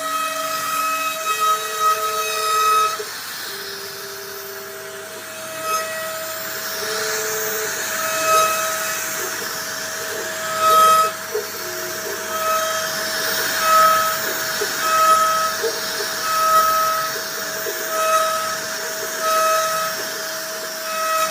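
CNC router carving wood: a steady high spindle whine with a second tone that pulses on and off about once a second, and lower motor tones that step between pitches as the machine moves.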